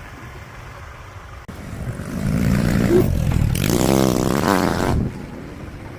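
A motor vehicle driving past close by: its engine and road noise swell up from about two seconds in, peak as it passes, and fall away abruptly near the end.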